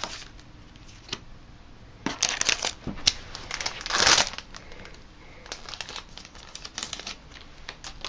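Foil trading-card booster pack wrappers crinkling as a pack is handled and opened, in irregular rustles, the loudest about four seconds in.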